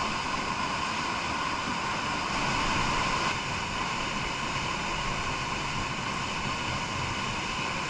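Waterfall rushing steadily down a narrow rock gorge, an even hiss of falling white water.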